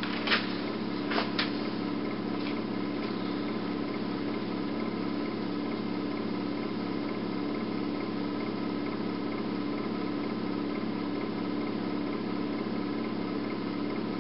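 Steady mechanical hum with several fixed tones that never change, with a few small clicks in the first second and a half.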